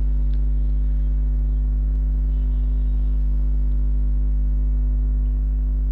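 Steady low electrical mains hum with a stack of evenly spaced overtones.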